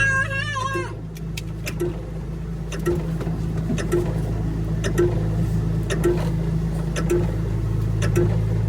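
Excavator engine running steadily, with a soft tick repeating about once a second.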